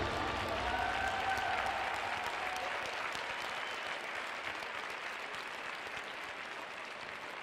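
Arena audience applauding at the end of a figure skating free program, the applause slowly dying away.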